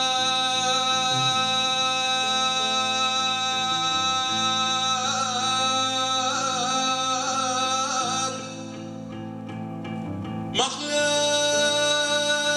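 A man singing into a microphone over a low sustained accompaniment. One long held note wavers with ornaments in its middle and breaks off about eight seconds in. A second long note begins near the end.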